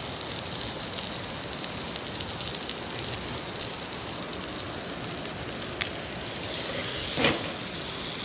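Trout frying in a pan over a campfire: a steady sizzling hiss with faint scattered crackles, and a single louder pop near the end.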